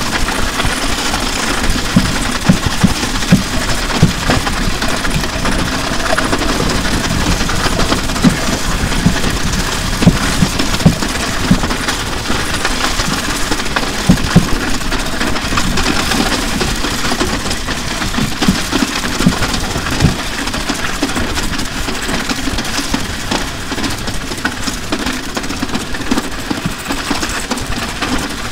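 Drum kit and electric guitar being dragged along wet tarmac: a continuous grinding scrape and rattle with irregular hollow thumps from the drums bouncing, heard through an overhead microphone and the guitar's line feed. The thumps come thickest in the first half.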